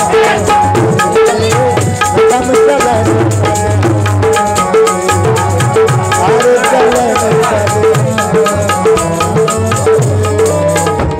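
Instrumental passage of a Saraiki folk song: a harmonium plays the melody in held notes over a fast, steady drum beat with rattling percussion.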